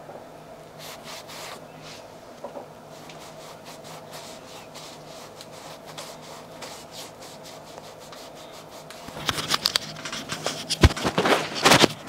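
Cleaning pad rubbing over a suede-and-leather hiking shoe: faint scrubbing strokes, turning into louder, quick rubbing about nine seconds in, with a single knock near the end.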